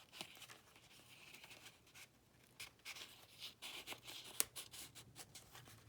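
Faint rustling and soft ticks of paper being handled, pages and paper pockets of a handmade journal moved about, with one sharper tick about four and a half seconds in.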